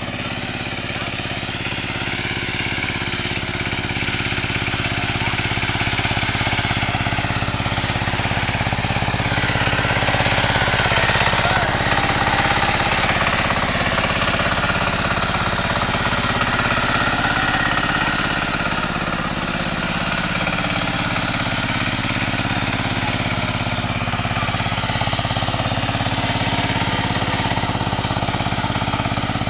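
Kamco KMB200 power tiller's single-cylinder diesel engine running steadily under load as the rotary tiller works through deep paddy mud. It grows louder over the first several seconds and eases off a little in the last third.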